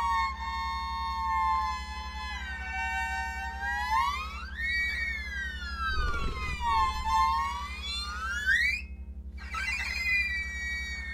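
Electronic music: a single pitched, siren-like tone sliding slowly down and up, climbing steeply and cutting off abruptly about nine seconds in, then coming back a moment later, over a steady low pulsing drone.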